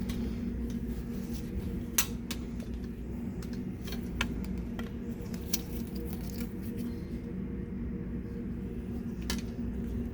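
Clothes hangers clicking against a metal clothing rack as t-shirts are pushed along it, a scatter of sharp irregular clicks, the loudest about two seconds in, over a steady low hum.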